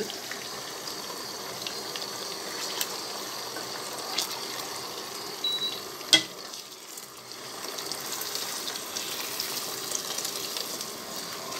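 Beaten eggs sizzling as they fry in hot oil in a pot, with a few sharp taps of a spatula against the pot, the strongest about six seconds in. The sizzle drops briefly after that tap and builds again.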